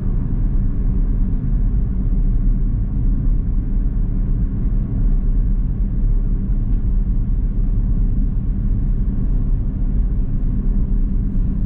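Steady road and engine noise heard inside a moving Toyota sedan's cabin: an even low rumble with no distinct events.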